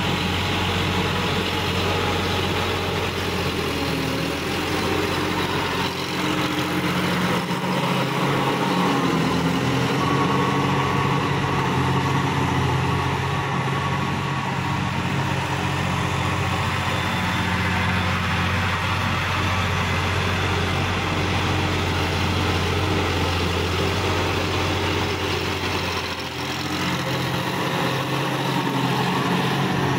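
Sonalika tractor's diesel engine running steadily while it drives a rotary tiller through the soil.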